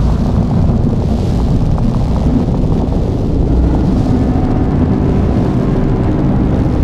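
Synthesized horror sound effect: a loud, steady, dense low rumbling drone with a faint hiss above it, made on a Nexus synthesizer.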